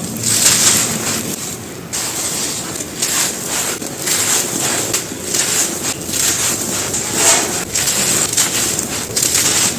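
Brittle, chalky chunks being crushed and crumbled by hand: a continuous dense crunching and crackling made of many small breaks.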